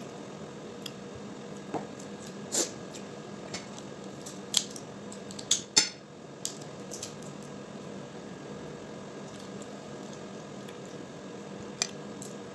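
Cooked crab shells being cracked and picked apart by hand: scattered sharp cracks and snaps, the loudest a close pair a little before six seconds in, over a steady background hum.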